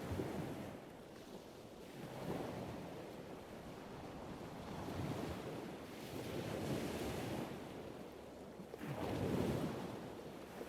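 Ocean waves breaking and washing in, a rushing noise that swells and falls back every two to three seconds, with the biggest surge near the end.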